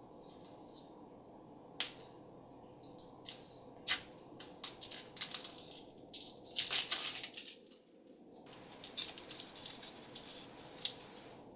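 Hands unwrapping a Shopkins candy jar toy surprise: crinkling and rustling of the packaging, with scattered clicks and snaps.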